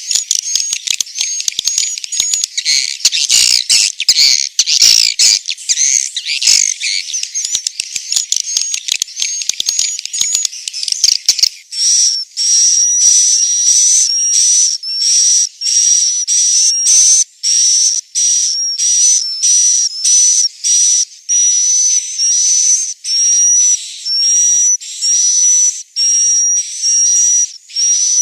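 Edible-nest swiftlet roosting calls, the 'inap' sound played to draw swiftlets into a nesting house: for about the first eleven seconds a dense overlapping high twittering of many birds, then abruptly a single high chirping call repeated a little more than once a second.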